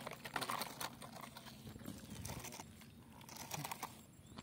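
Wet, crunching clicks on a mud bank, dense in the first second and sparser after, as a plastic toy dump truck is dragged through mud and grit.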